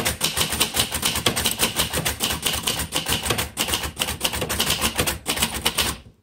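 A 1962 Royal Custom manual typewriter being typed on: a rapid, steady run of keystrokes that stops just before the end.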